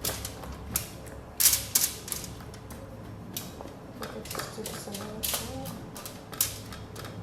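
Irregular clatter and knocks of potato pieces being set down onto a foil-lined baking sheet, about half a dozen sharp ones spread unevenly.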